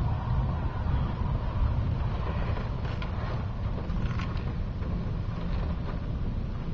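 Heavy rain and strong wind on a car, heard from inside the cabin: a steady low rumble under an even hiss, with a few faint crackles in the middle.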